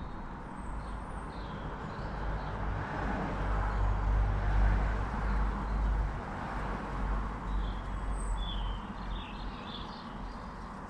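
A vehicle passing at a distance: a low rumble that swells to a peak midway and fades again, with a few short bird chirps near the start and again near the end.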